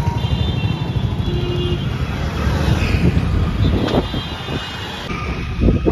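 City street traffic heard from a moving cycle rickshaw: a steady low rumble of engines and road noise, with a few short high-pitched toots early on and again about four seconds in, and a louder low bump near the end.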